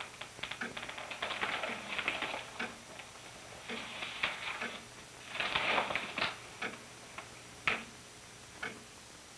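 Newspaper and booklet pages rustling and crinkling in three short bouts, then a tall-case clock ticking alone, about once a second, near the end.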